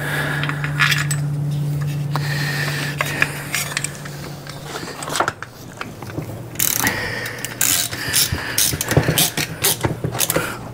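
Hand tool tightening screws into a small two-stroke trimmer engine's exhaust: a run of ratchet clicks and metal scraping through the second half. A steady low hum runs under the first half.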